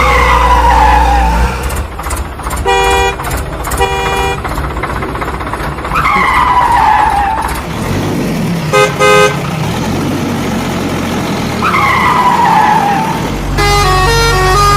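Horn honks: two honks about a second apart, then two short quick beeps a few seconds later, over a low engine-like rumble, with a falling whistle-like glide coming back about every six seconds. Music starts near the end.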